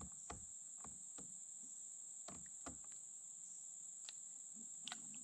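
A steady, high-pitched chorus of summer insects trilling, with a few faint clicks and taps scattered through it.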